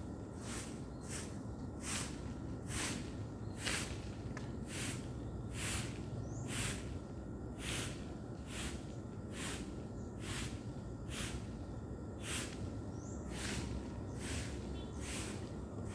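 A broom sweeping a paved path in quick, regular strokes, each a short scratchy swish, about two a second.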